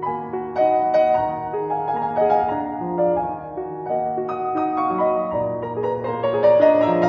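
Background piano music: a gentle melody played over held lower notes.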